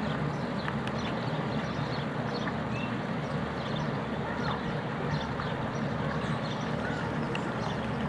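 Small rock cascade splashing steadily into a pond, with many short high bird chirps scattered over it.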